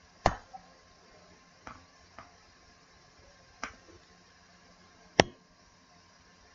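Computer mouse clicking about five times at uneven intervals, each a short sharp click, the loudest about a quarter second in and about five seconds in.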